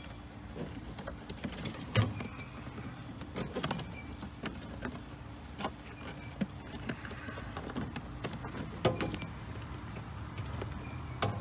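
A pleated cabin air filter being pushed and worked into its plastic housing under a BMW X4's cowl: scattered plastic clicks and knocks, the loudest about two seconds in and again near nine seconds, over a steady low hum.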